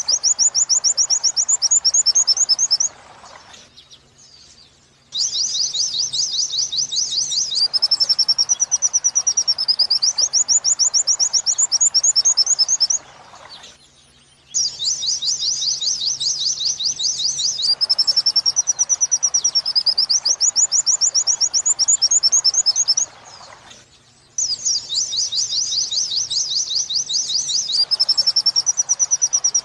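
Pleci (white-eye) song in the 'wit-wit sambung kuntilanak' style, for masteran training: fast high trilled chatters alternating with wavering, rising-and-falling 'wit-wit' notes. The same phrase comes round about every ten seconds, broken by short pauses, so the recording is looped.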